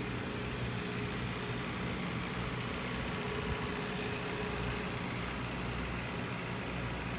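A car driving, with a steady engine and road noise.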